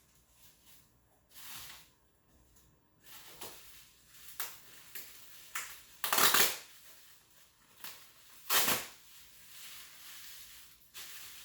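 Handling noise from the unboxing: a series of short rustling, crinkling bursts of packaging being moved, the two loudest about six and eight and a half seconds in.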